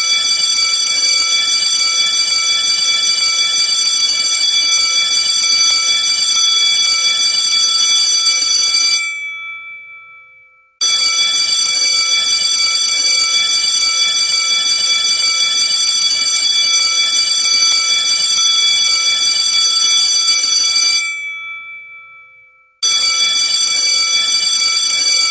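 School bell ringing in long, unbroken peals of about ten seconds each. Each peal stops and rings away over a second or two before the bell starts again. One peal ends about a third of the way in, a second rings through the middle, and a third starts near the end.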